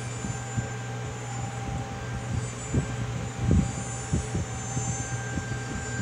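Warning siren sounding a steady tone that swells and fades in loudness, over a low hum, with scattered low thumps close to the microphone, the loudest about three and a half seconds in.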